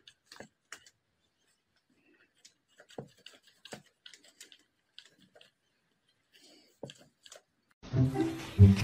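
Faint scattered clicks and paper rustles as a cat noses into a stack of books and papers. Near the end, louder music cuts in.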